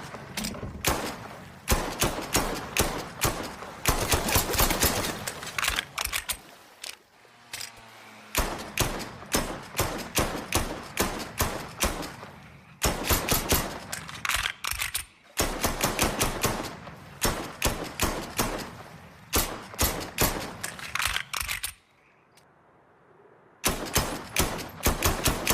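Browning Hi-Power pistol shots fired in fast strings, several shots a second, with short breaks between strings and a pause of about two seconds near the end.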